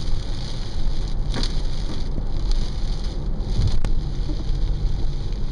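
Steady low rumble of a car's engine and tyres on a wet road, heard from inside the cabin, with a hiss of light rain.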